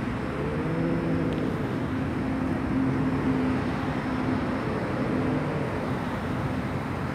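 Black-and-white street cat growling low and drawn out. The pitch rises and falls near the start, then holds steady for a few seconds, with steady background traffic noise underneath.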